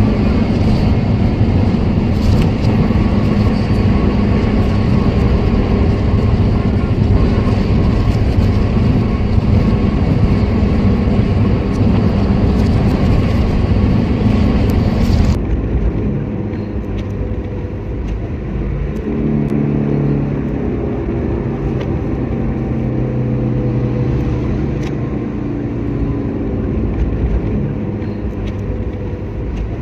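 Motor vehicle driving, with engine and road noise. About halfway through, the sound changes abruptly to a duller, slightly quieter engine hum, as at a splice between recordings. After that the engine pitch shifts in steps as the speed changes.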